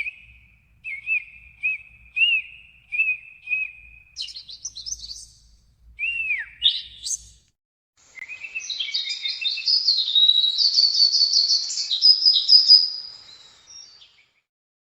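Songbirds singing: a run of short, clear whistled notes, then a few higher chirps and a down-slurred whistle, and from about halfway through a long, rapid warbling song that stops a second before the end.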